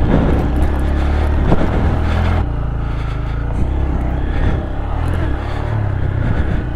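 Honda Grom's 125cc single-cylinder engine running as the bike rides over a rocky dirt trail, easing off about two and a half seconds in and picking up again near the end.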